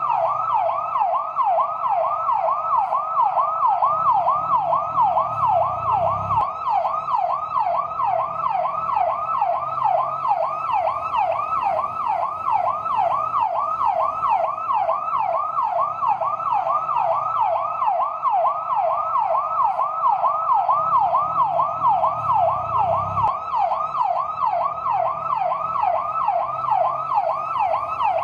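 Fire truck's electronic yelp siren, its pitch sweeping quickly up and down about three times a second without a break. A low rumble rises underneath twice and cuts off suddenly.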